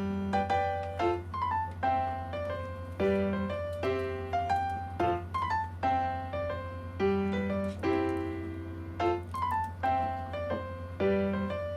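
Background keyboard music: a light melody of separate notes, two or three a second, over a steady low hum.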